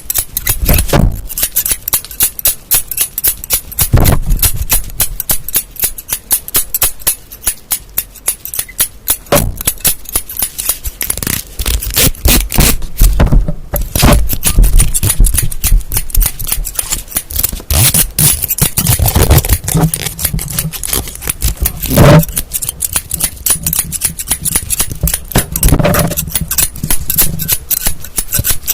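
Close-miked ASMR tapping and scratching on objects: a dense run of quick crisp clicks and scrapes, broken by a few heavier knocks.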